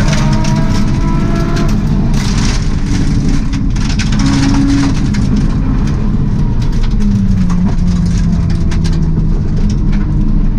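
Subaru rally car at speed on a gravel stage, heard from inside the stripped cabin: the engine runs hard, its pitch rising and falling with the revs and stepping down about seven seconds in. Underneath is a constant rumble of tyres on gravel, with many sharp ticks of loose stones striking the underbody.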